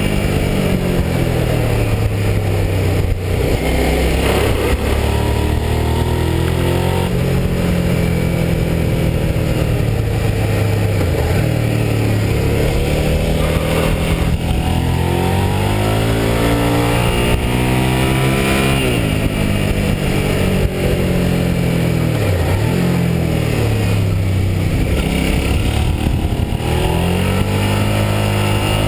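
Motorcycle engine heard from the rider's seat, its pitch rising and falling again and again as it accelerates and eases off through the gears, over steady wind rush.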